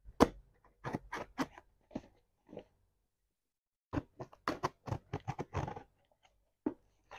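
A parcel's packaging being opened by hand: bursts of crackling, crinkling and ripping with a pause of about a second in the middle.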